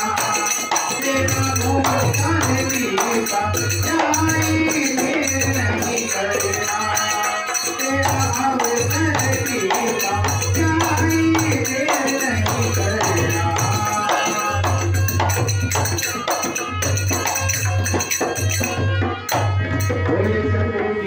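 A man singing a devotional song (bhajan) into a microphone, accompanied by a harmonium and small brass hand cymbals, over a steady beat.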